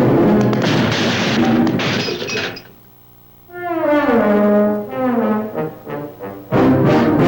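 Cartoon orchestral score: a loud crashing clatter over the music, then a short lull, then a string of brass notes sliding downward in steps. A loud orchestral hit comes near the end.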